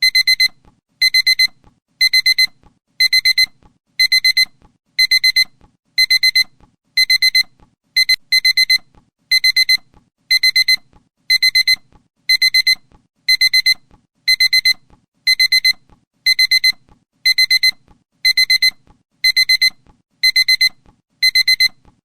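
Electronic alarm beeping: a high beep in quick bursts of four, repeating about once a second.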